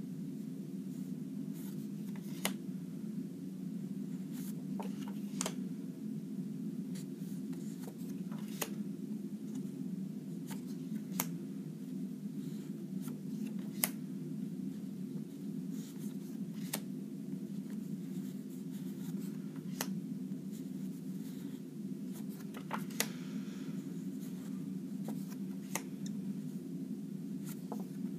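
Stack of card flashcards being handled and flipped one by one, giving irregular short clicks and rustles every second or two over a steady low hum.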